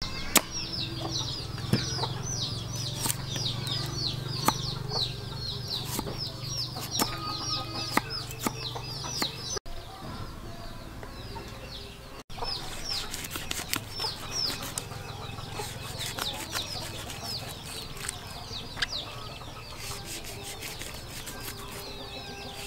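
Chicks peeping over and over in quick high chirps, breaking off for a couple of seconds near the middle. Sharp knife taps on a wooden chopping board come through the peeping.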